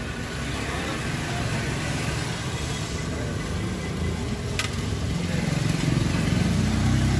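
Motor vehicle engine running steadily over street noise, growing louder in the last couple of seconds, with a single sharp click about halfway.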